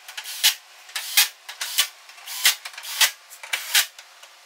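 Cordless drill driving screws into a pickup's tailgate inner plate, in short repeated bursts about one every two-thirds of a second.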